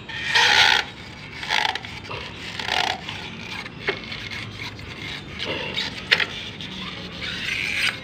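An automatic scooter's rubber CVT drive belt and rear clutch-pulley assembly being worked off the shaft by hand, giving a series of scrapes and rubs, the loudest about half a second in, with a sharp click about six seconds in.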